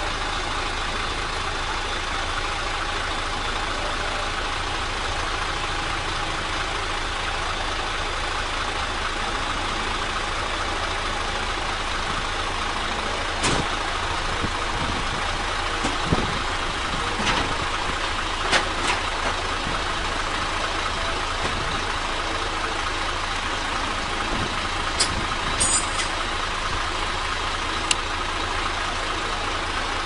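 Steady engine drone with a low, rapidly pulsing rumble, broken by a few short sharp clicks in the second half.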